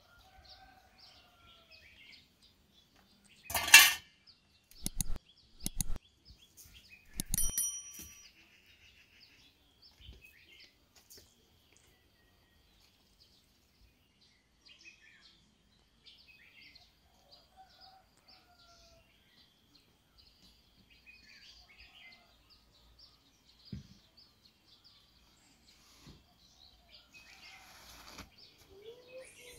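Small birds chirping on and off throughout. A cluster of loud knocks and clatters comes about four to eight seconds in, the last a metal dish clanking and ringing briefly.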